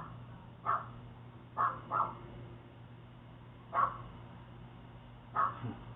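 An animal's short calls, about six at irregular intervals, picked up by a doorbell camera's microphone.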